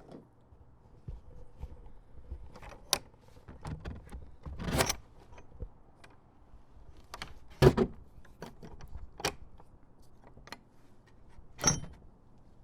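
Wooden fence gate with a metal latch being worked open and shut: a run of metal latch clicks and rattles, a longer scrape about five seconds in, and sharp knocks as the gate bangs against its frame, loudest about two-thirds of the way through and again near the end.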